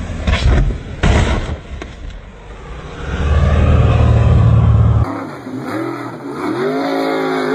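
Speedboat engine and spray noise with two sharp knocks within the first second and a half, then a loud steady low drone. About five seconds in, a race boat's engine revs up and down repeatedly as it runs through river rapids.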